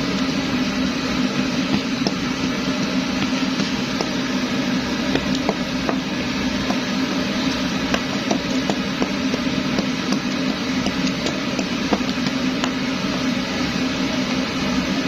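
Pressurised kerosene primus stove burning with a steady rushing hiss, with faint scattered clicks from cooking on top of it.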